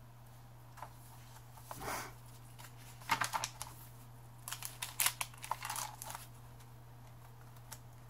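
Dyed paper pages of a handmade junk journal being turned and handled, giving short crisp rustles and crackles about two seconds in, again about three seconds in, and in a cluster a little past the middle.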